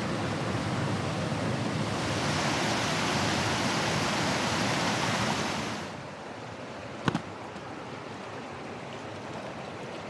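Rushing stream water, steady and full, swelling louder from about two seconds in and dropping back abruptly near six seconds. A single sharp click about seven seconds in.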